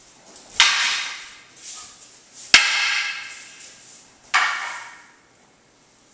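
Wooden practice swords (bokken) striking together: three sharp clacks about two seconds apart, each trailing off in a short echo.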